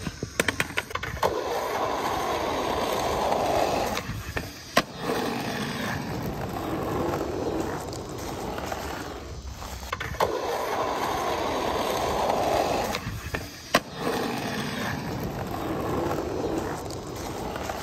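Skateboard wheels rolling over rough, cracked asphalt, with a rapid clatter of the board hitting the ground at the start after a bail. Single sharp clacks of the board come about five seconds in and again near fourteen seconds, each after a brief quiet spell: heelflip attempts popping off the tail.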